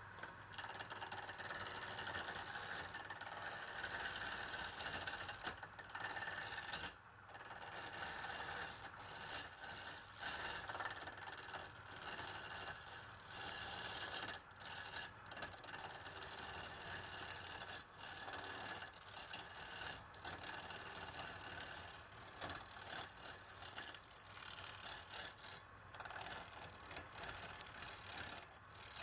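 Wood fire burning, with a dense, irregular crackle of small pops from the burning firewood.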